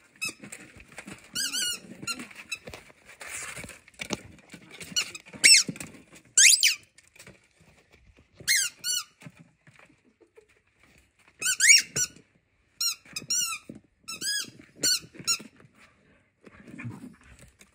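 Squeaker in a rubber chicken dog toy squeaking as a husky bites down on it: a dozen or so short, pitch-bending squeaks in irregular clusters.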